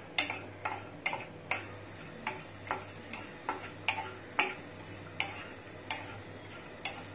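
Black utensil tapping and scraping against a non-stick kadai as coconut strips are stirred while roasting: sharp taps about twice a second.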